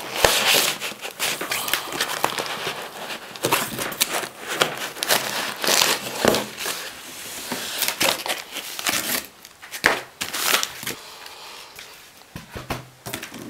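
Packaging wrap crinkling and rustling as a new laptop is unwrapped and handled out of its box, in irregular crackles.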